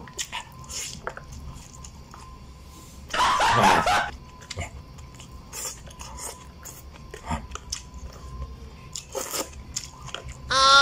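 A person chewing and biting food with the mouth close to the microphone: crunching and wet mouth clicks, with one louder crunching burst about three seconds in.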